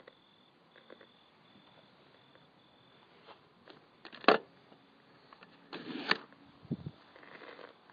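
A few short, sharp clicks and knocks over faint background hiss: the loudest, a sharp click, comes about four seconds in, a short rustling burst ending in a click follows near six seconds, and a low thump comes just before seven seconds.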